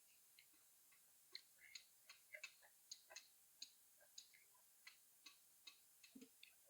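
Faint, irregular wet clicks of someone eating spicy instant noodles: mouth and lip sounds while chewing, about two or three a second.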